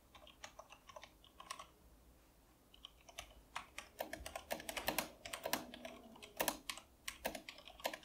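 G.Skill Ripjaws KM780 mechanical keyboard with Cherry MX switches being typed on. A few scattered key presses, a short lull, then fast, continuous typing from about three seconds in, with the keys struck hard.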